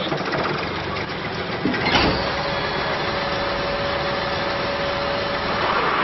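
Heavy wheel loader's diesel engine running steadily.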